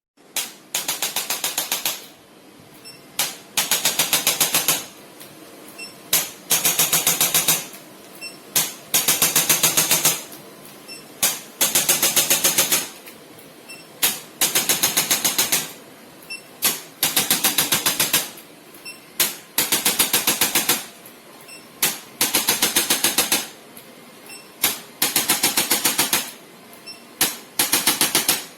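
A handheld electric percussion instrument tapping in rapid bursts of fast, evenly spaced strikes, each burst a second or two long with short pauses between, several led off by a single tap.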